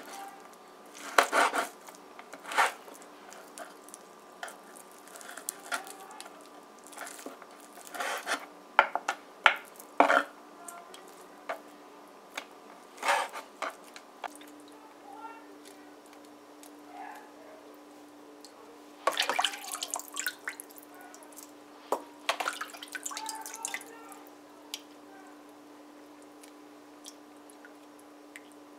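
A steel cleaver chopping and knocking on a bamboo cutting board as chicken drumsticks are deboned: short, sharp knocks at irregular intervals. Later, water splashes and drips as raw chicken is rinsed by hand in a plastic bowl of water in a sink.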